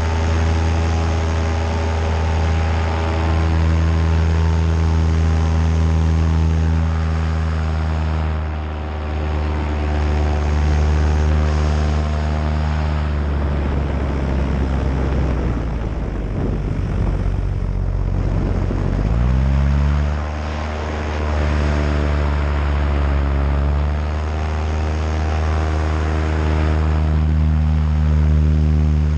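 Paramotor's Nitro 200 two-stroke engine and propeller running steadily in flight. About halfway through, the engine note falls away into a rushing noise for several seconds, then climbs back up in pitch as the throttle opens again.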